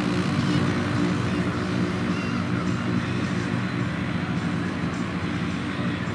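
AutoGyro Cavalon gyroplane's engine and pusher propeller running steadily as it taxis away over grass, the sound slowly fading.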